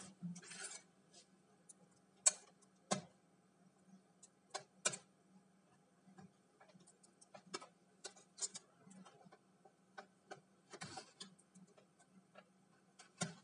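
Metal pry tools clicking and scraping against the plastic edge of an Acer Aspire laptop keyboard as it is pried out of the case: scattered sharp clicks at irregular intervals, about a second or more apart.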